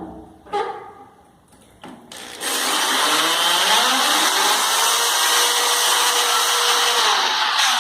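Electric drill boring into wall tile in normal rotation, with the hammer action off. It gives a couple of short blips, then runs steadily for about five seconds with its pitch rising as it gets up to speed and cuts, and stops near the end.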